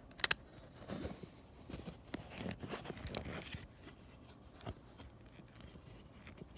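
Faint, scattered clicks and crinkling of plastic Lego pieces being handled and pressed together.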